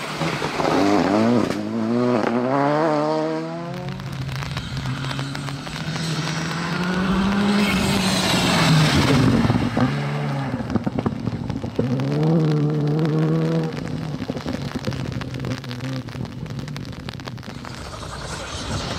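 Rally car engines at full throttle on a stage: the revs climb and drop several times in quick succession early on as the car shifts up through the gears. The engine then runs steadier, and a second burst of hard revving comes about two-thirds of the way through.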